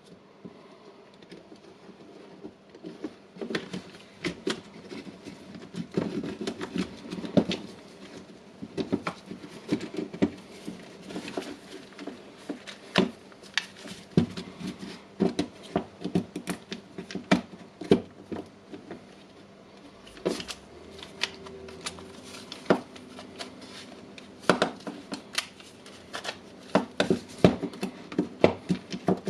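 Irregular clicks and knocks of DeWalt DCD780 cordless drill parts being handled and fitted together while the gearbox and housing are reassembled, with a short lull around 19–20 s.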